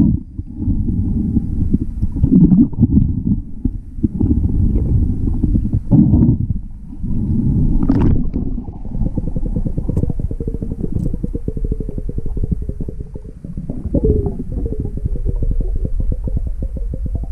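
Muffled underwater sound of a camera below the surface: a low rumble of water moving against the housing, with a fine rapid crackle and louder surges every few seconds.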